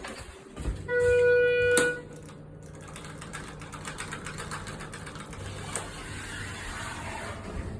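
A loud, buzzy electronic beep lasting just under a second, about a second in, ending with a click. Then the steady low hum and light rapid rattling of a Schindler HT 330A elevator running.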